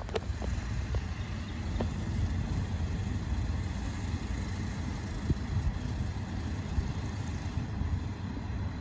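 Engine of a rail track maintenance machine running steadily, a low rumble, with a few light clicks over it.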